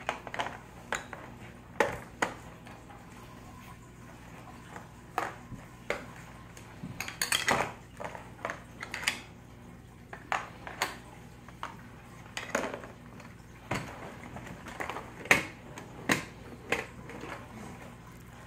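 Small plastic toy pieces clicking and clattering against a hard plastic playset case as they are packed away and its hinged panels folded shut: irregular knocks, with a busier run of them about seven seconds in.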